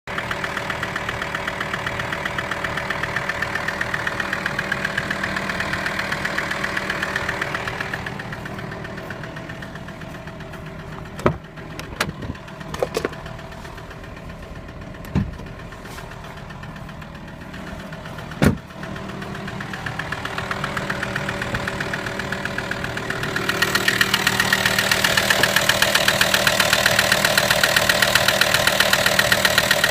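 VW T5's 2.5 TDI five-cylinder diesel (AXD) idling with a steady, rhythmic ticking and knocking, an engine noise whose cause has not yet been found. It is quieter through the middle, with a few sharp clicks, and louder again near the end.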